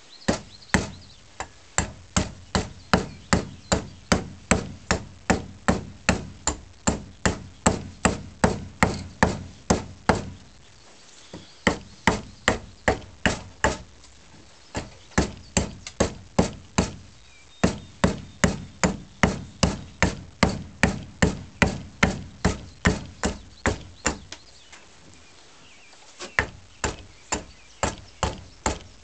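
Side hewing axe chopping into a wooden snath grip, quick strokes about two to three a second, in runs broken by a few short pauses.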